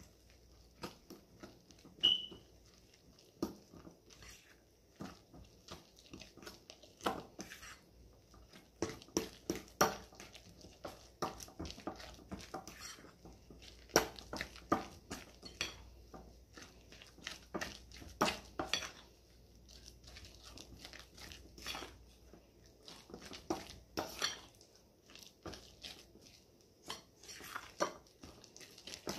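Plantain puff-puff batter being mixed in a glass bowl: irregular knocks, taps and scrapes against the glass, with soft sounds of the wet dough being worked. A short high squeak comes about two seconds in.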